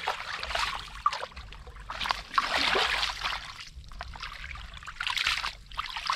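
Shallow muddy water sloshing and splashing in uneven bursts, as it is stirred by hand while searching for fish in the mud.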